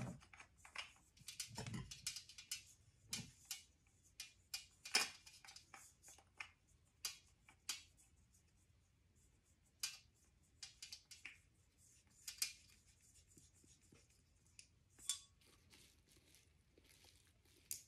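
Faint, scattered clicks, taps and rustles of hands handling a ceramic wax warmer's stacked pieces and its cord while changing its light bulb.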